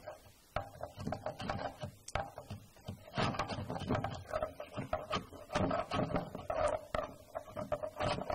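A shop-made scraper, a blade bolted to a wooden block, scraping hardened overnight wood glue off the glue lines of a cutting board blank in a series of short, uneven strokes.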